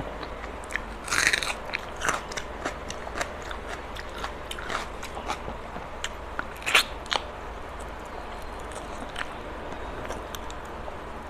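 Close-up eating sounds of rice and chicken curry eaten by hand: wet chewing and biting with sharp smacks and clicks, the loudest about a second in and near seven seconds in, growing sparser toward the end. A steady low hum runs underneath.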